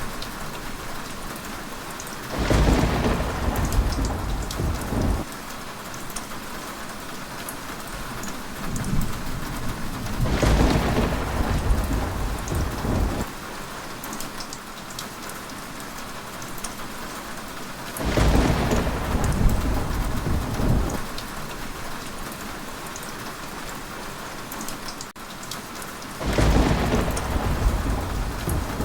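Heavy rain falling steadily, with a roll of thunder about every eight seconds. Each roll rumbles low for about three seconds, four times in all.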